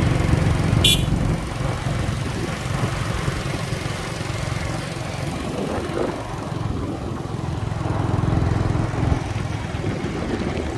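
Motorbike engine running with a steady low rumble. A brief sharp high-pitched click about a second in.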